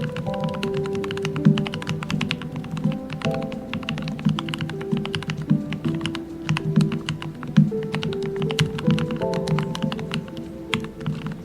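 Steady, fast typing on a modded Royal Kludge RK68 mechanical keyboard: a dense, uneven run of deep "thocky" keystrokes. Background music with held notes plays under the typing.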